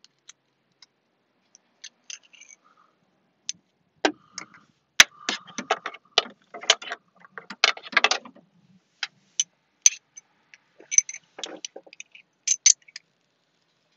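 Metal hand tools clicking and clinking, a socket wrench and sockets being handled. The clicks come scattered, with a dense run of rapid clicking from about four to eight and a half seconds in.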